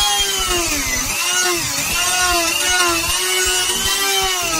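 Small handheld rotary tool's motor running with a whine whose pitch dips and recovers several times.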